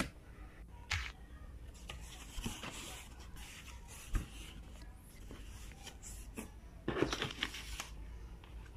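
Cardboard shipping box being opened and handled: scattered rustles, scrapes and light knocks of cardboard flaps and paper, with a louder stretch of handling about seven seconds in.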